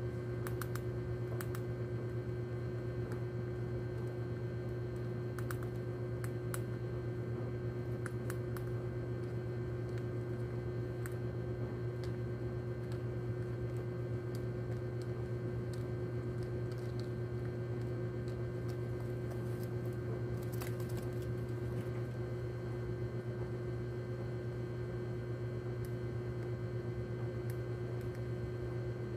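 A steady low electrical hum with scattered faint clicks and ticks, a few bunched together near the start and about two-thirds of the way in.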